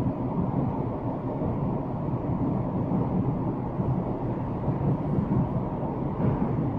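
Kyoto Municipal Subway 50 series train running through a tunnel, heard from inside the car: a steady low rumble of wheels on rails and running gear, with no motor whine rising or falling.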